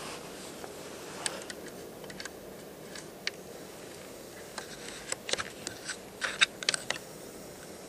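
Scattered sharp clicks and small knocks over a steady hiss, coming thickest in a cluster about five to seven seconds in.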